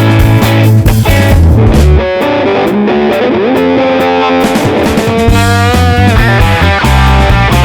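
Rock music with electric guitar: the heavy bass drops out about two seconds in, leaving a sliding lead-guitar line, and comes back about five seconds in.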